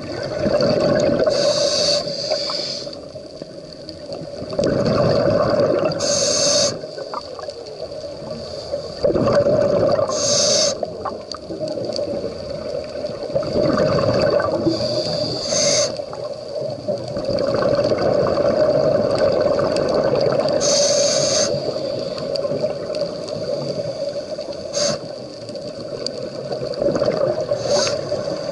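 Scuba diver breathing through a regulator underwater: a short hiss of each inhale about every five seconds, then a longer rush of bubbling exhaust, over a steady hum.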